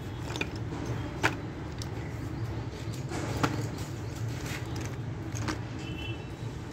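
Slate pencils clicking against each other as a hand stirs through a pile of them: a few sharp clicks and lighter rattles over a steady low hum.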